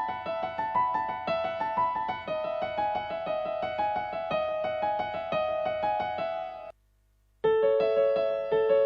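Piano playing quick repeated broken-chord figures over the seventh-chord progression Amaj7–G#m7–F#m7–Emaj7. About two-thirds of the way through it cuts off abruptly, falls silent for under a second, then starts again.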